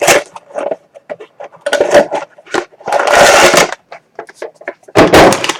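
Packaging being handled and opened by hand: irregular rustling, crinkling and scraping in short bursts, the longest and loudest about three seconds in.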